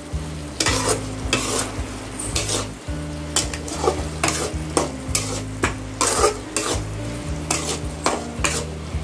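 Spatula scraping and stirring chicken pieces in sizzling thick masala in an aluminium kadai, in strokes about twice a second. A steady low hum runs underneath.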